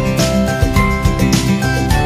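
Background music with melodic notes over a steady beat.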